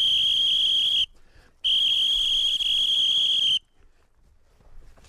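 Dog whistle blown in two long blasts, each a steady high note; the first ends about a second in and the second follows after a short break. It is the down signal that stops a hunting dog chasing a hare and drops it flat.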